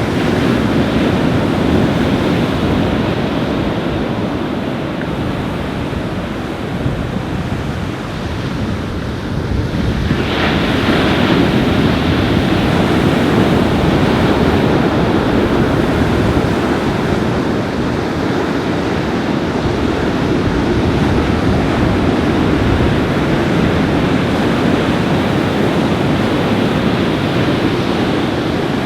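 Surf breaking on a beach in strong wind, with wind buffeting the microphone in a steady low rumble. The noise dips a little, then surges louder about ten seconds in.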